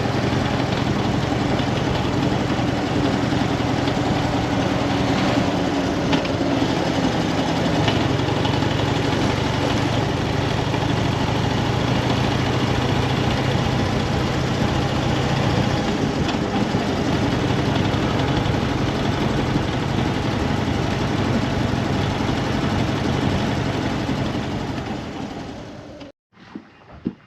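Harley-Davidson FXDF Dyna Fat Bob's V-twin engine running steadily, cutting off abruptly near the end.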